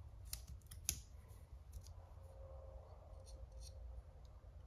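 Faint metal clicks of a small SOG multi-tool being handled as its slip-joint folding blade is opened, with one sharper click about a second in.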